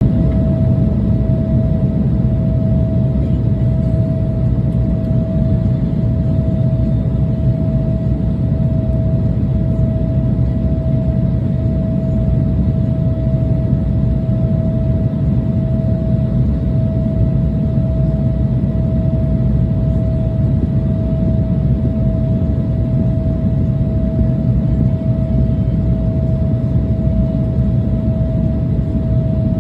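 Steady drone of an airliner cabin in flight: a low rumble with a constant whine over it.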